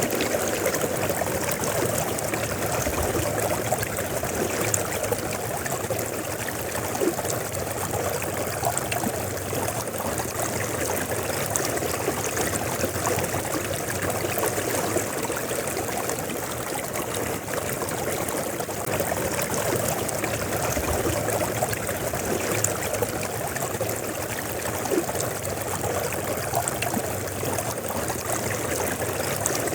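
A river flowing steadily over a rocky bed, a continuous rushing babble with small splashes and gurgles.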